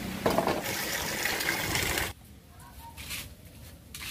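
Water splashing and sloshing in a plastic basin as small bitter eggplants are rinsed by hand. It stops abruptly about two seconds in, leaving a quiet background with a faint tap.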